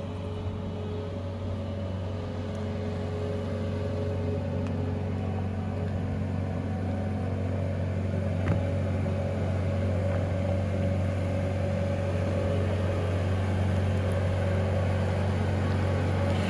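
New Holland wheeled skid steer loader's diesel engine running steadily and slowly growing louder as the loaded machine drives closer. One brief knock about halfway through.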